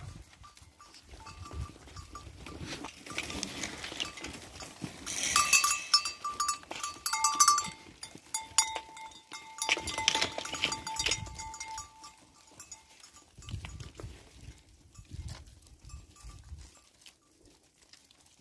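A flock of hair sheep bleating as they crowd along with the walker, the loudest calls coming midway. Scattered short clicks and rustles run under the calls.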